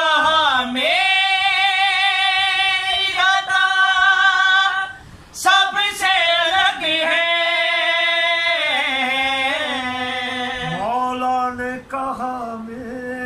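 A man singing devotional Urdu verse unaccompanied, drawing out long held notes that glide between pitches, with a short break for breath about five seconds in.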